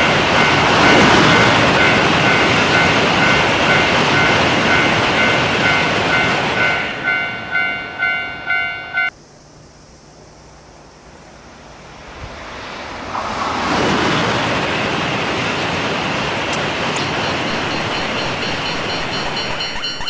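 Japanese railroad crossing bell ringing its repeated two-tone clang over the rush of a shinkansen passing at speed. The train noise falls away to leave the bell striking alone, and the bell cuts off suddenly about nine seconds in. After a few quieter seconds a second train's rush builds and holds, and near the end another crossing bell starts ringing.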